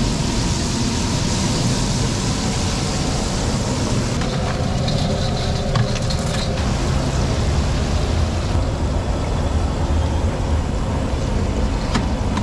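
Chicken deep-frying in a wide wok of hot oil, a steady sizzle, over a constant rumble of street traffic, with a few short metal clinks from a perforated skimmer against steel trays.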